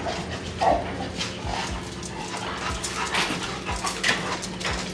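Labrador retrievers whimpering and yipping, among scattered short clicks and knocks.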